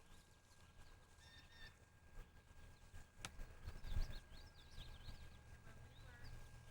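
Faint birds chirping and twittering in short rising and falling calls, busiest a few seconds in, over a low rumble and a faint steady high whine, with one sharp click about three seconds in.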